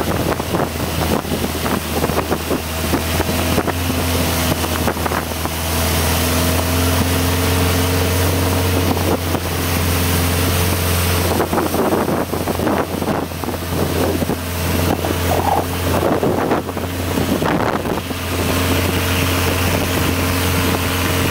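Engine of a narrow wooden canal boat running steadily under way, a low drone that gets louder about five seconds in, with water rushing along the hull and wind on the microphone.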